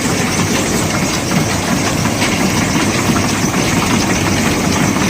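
Small rice husking and milling machine running steadily: a loud, continuous mechanical din with a low hum underneath, no let-up.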